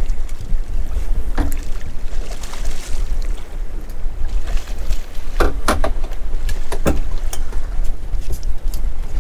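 Steady low wind rumble on the microphone aboard a small open boat, with several sharp knocks and clicks, the loudest in a cluster a little past the middle.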